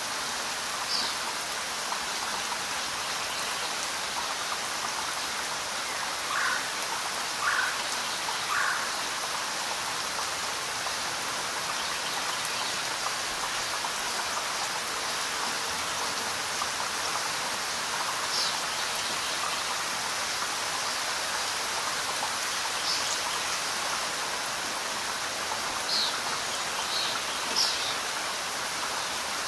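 Steady rain falling, an even hiss of many drops. A few short, sharp sounds stand out over it: three about a second apart early in the first third, and several more near the end.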